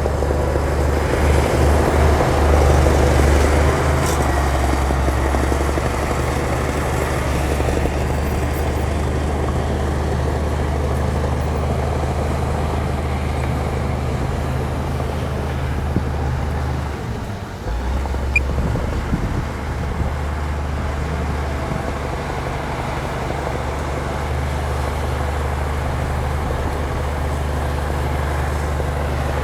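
Heavy earthmoving machine's diesel engine running steadily, with a brief drop in the engine sound about seventeen seconds in and a short sharp knock a second later.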